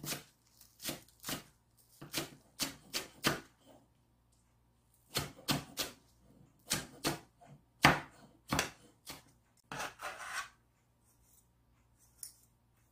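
Kitchen knife chopping green onions on a wooden cutting board: irregular runs of sharp knocks on the board, with a brief scrape about ten seconds in.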